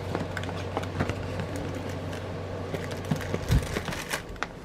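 Light handling noises: scattered small clicks and knocks as a bead storage container is fetched and handled, with a soft thump about three and a half seconds in and a few more clicks near the end. A low steady hum stops just before the thump.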